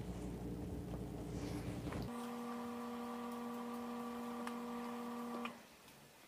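Steady low electrical hum that changes about two seconds in to a higher, steady buzzing tone, with a few faint clicks; the sound cuts out abruptly near the end.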